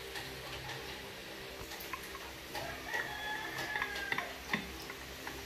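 Wooden spoon clicking and scraping against a small metal saucepan while a flour-and-water mixture is stirred into boiling sauce. About three seconds in, a rooster crows in the background, one drawn-out call lasting about a second.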